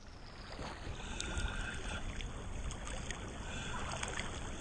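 Small-wave water lapping and gurgling around a camera held half-submerged at the sea surface, heard muffled, with scattered faint clicks and crackles; it grows a little louder over the first second or so.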